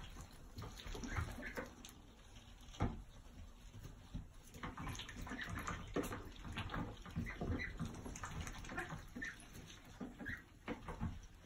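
Domestic ducks giving short, soft calls, scattered irregularly, with small clicks between them.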